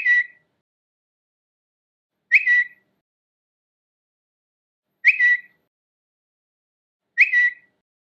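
Twitter notification sound: a short chirp that sweeps quickly upward and settles on a brief steady note. It repeats four times with silence between, every two to three seconds.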